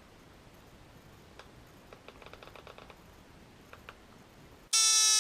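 A few light clicks and taps of handling, then a Milwaukee M12 cordless compact inflator switches on near the end: a loud, steady buzzing whine whose pitch sinks slightly as it starts pumping air into the strapped tyre to seat its bead.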